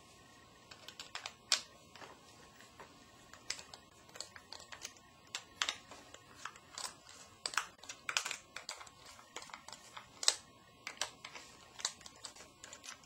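Screwdriver working the screws out of a plastic shower valve's front cover: irregular small clicks and taps of the tool on the screw heads and housing.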